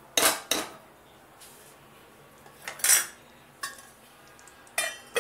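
Metal cookware clanking: a steel ladle knocked twice against a metal kadai, then further clinks as utensils and a stainless-steel lid are handled and set on the pan. The later clanks ring briefly.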